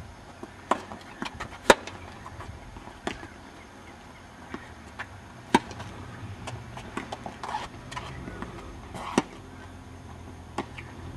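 Tennis balls struck with rackets and bouncing on the court: a run of sharp, irregularly spaced knocks, the loudest about two seconds in.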